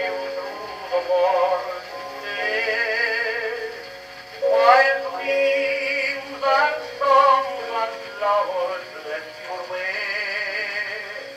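A tenor singing on a record played through the horn of a 1904 Columbia AH disc gramophone, the voice with a wide vibrato and a thin tone with little bass, sung in long phrases with brief breaks.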